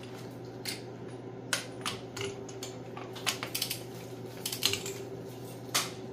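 Ratcheting torque wrench on cylinder head bolts: sharp clicks, some single and some in quick runs, as the wrench is swung and reset to tighten the head down bolt by bolt.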